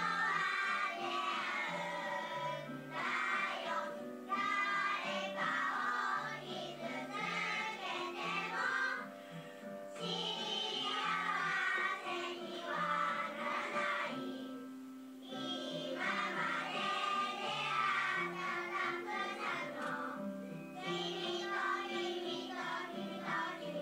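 A chorus of young children singing a song together in unison, phrase after phrase, with short breaks between phrases.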